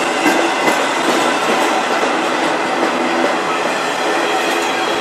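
Freight train cars rolling past, autoracks and then covered hoppers, their steel wheels clattering on the rails in a steady rumble. A few sharp clicks come in the first second.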